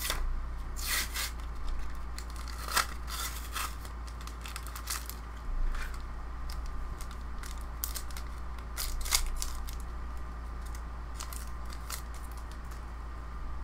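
Foil booster-pack wrapper crinkling and tearing as it is handled and ripped open by hand, in irregular sharp crackles and rustles.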